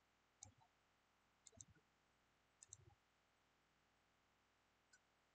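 Near silence with a few faint, short clicks scattered through it, about a second or so apart.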